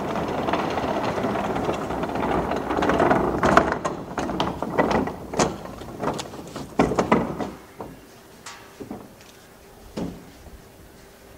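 Casters of a large four-wheeled plastic wheelie bin rumbling and rattling as it is rolled across a concrete floor, then a run of knocks and clacks as the bin is stopped and handled.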